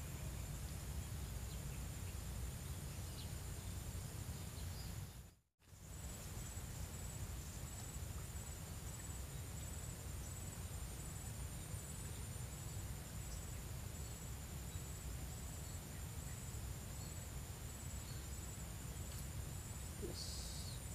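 Insects trilling steadily at a high pitch over a low steady rumble of rural background noise, one of them pulsing rhythmically for several seconds. The sound drops out completely for a moment about five and a half seconds in.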